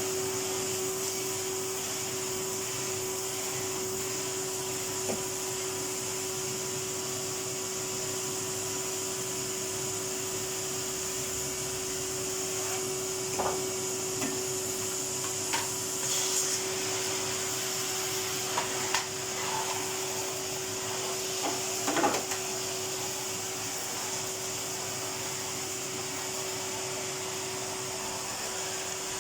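Vacuum cleaner running steadily with a constant hum and hiss. A few short knocks and bumps sound in the second half.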